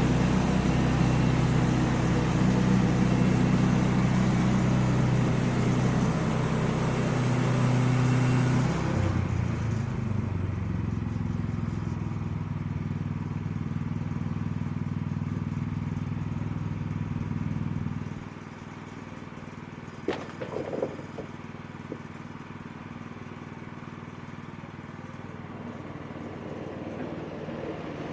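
Sawmill engine running under load while the blade cuts through wood, a steady hum with a hiss over it. The cutting hiss stops about nine seconds in while the engine runs on. About eighteen seconds in the engine drops to a quieter idle, with a few light knocks shortly after.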